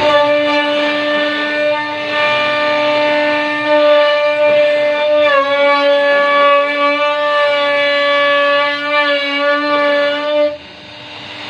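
CNC router spindle whining steadily while machining a wooden door panel, its pitch dipping briefly about halfway through. Near the end the whine stops and a rising hiss follows.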